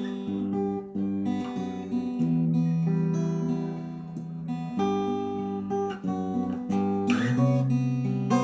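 Acoustic guitar played fingerstyle: a plucked melody over bass notes, with a few percussive knocks on the guitar body, the loudest about seven seconds in.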